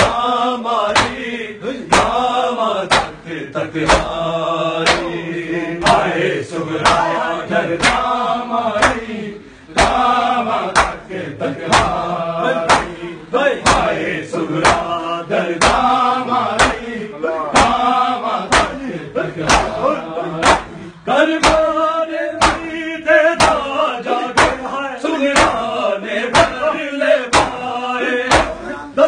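Group of men chanting a noha lament in unison while beating their bare chests in matam. The hand slaps on bare chests keep a steady beat under the singing.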